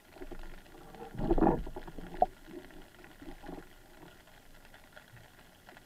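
Muffled underwater water noise picked up by a camera underwater, gurgling and uneven, with a louder rush about a second in and a single sharp click just after two seconds.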